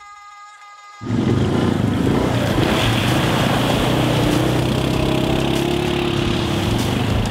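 ATV engine running under throttle as the quad wheelies through a shallow river crossing, with water spraying and splashing around it. It comes in abruptly about a second in, over background music.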